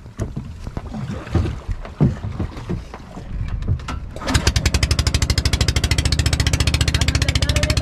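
A few irregular knocks and bumps, then about four seconds in a small boat engine starts running with a fast, steady chugging.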